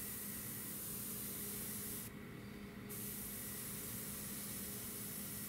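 Airbrush spraying paint, a steady hiss of air in two passes with a short break about two seconds in.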